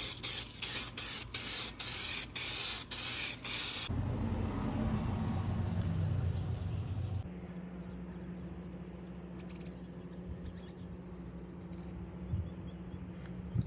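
Aerosol can of 2K clear coat sprayed onto a wheel in short repeated bursts, about nine hisses two to three a second. After about four seconds it gives way to a quieter steady low hum.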